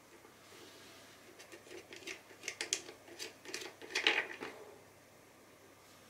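Small plastic clicks and rattles as the screw-on hub cap of a Yamazen YAR-DW15 circulator's fan blade is turned off by hand. The clicks come in an uneven run starting about a second and a half in, with the loudest near four seconds.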